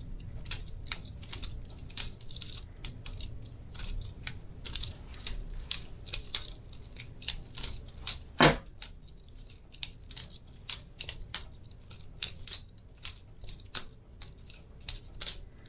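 Boker Plus balisong butterfly knife being flipped open and closed, its metal handles and latch clicking and clacking against the blade's tang, two or three clicks a second in an uneven rhythm. There is one louder clack about eight and a half seconds in.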